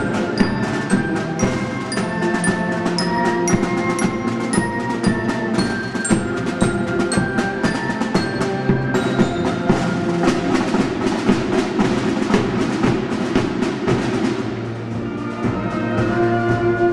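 Marching band of drums, flutes, brass and glockenspiel playing a march: snare and bass drums beat steadily under a held melody, with high glockenspiel notes ringing over it. The drumming grows busier about nine seconds in and eases off a few seconds before the end.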